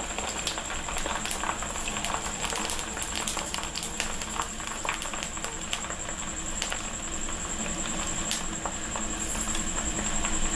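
Hot pork lard poured over roasted pork belly skin, sizzling steadily with many small pops and crackles as the skin crisps into crackling.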